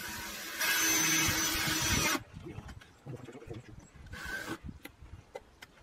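A cordless power tool runs for about two seconds, stepping up to a faster, louder whirr about half a second in, then stops; a second short run comes about four seconds in, followed by light clicks and metal rattles.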